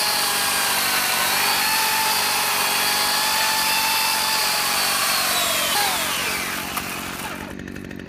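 Corded electric chainsaw running with a steady high whine as its bar cuts into the top of a log. About six seconds in, the whine falls in pitch and fades as the chain winds down.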